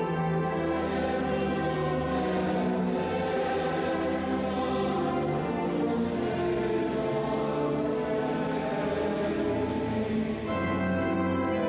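Large mixed choir singing slow sustained chords, accompanied by a chamber string orchestra. The chords shift to a new one about ten and a half seconds in.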